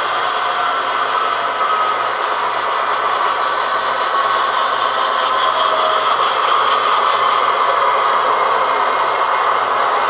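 HO scale model diesel locomotive's LokSound V5 sound decoder playing a diesel engine running, heard through the model's small onboard speaker as the locomotive rolls along the track. A thin high whine drifts slowly down in pitch.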